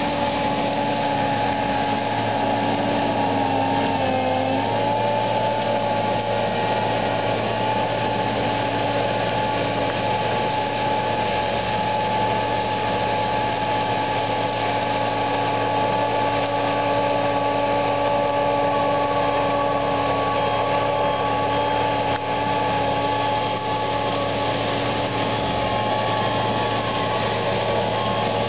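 Gyro Trac GT-25XP tracked brush mulcher running steadily while mowing manzanita brush, a continuous engine drone with a high whine over the grinding of the mulching head. Its pitch sags briefly about four seconds in, then recovers.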